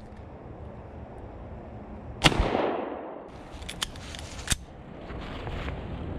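A single loud gunshot about two seconds in, with a long echo fading through the woods, followed by a few sharp clicks of gun handling.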